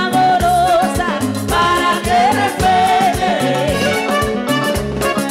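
Live Panamanian música típica band playing: a woman sings a wavering melody over button accordion, congas, drum kit and electric bass, with a steady percussive beat.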